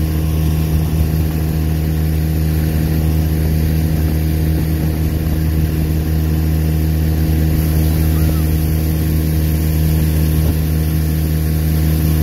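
Honda 10 hp four-stroke outboard motor running steadily at a constant speed, under load while pulling a towed inflatable tube.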